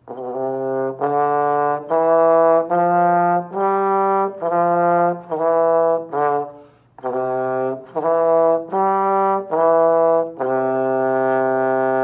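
Trombone playing a five-note C major scale in slow, even notes, C up to G and back down to C. After a short breath it plays a C–E–G–E–C arpeggio, holding the final low C.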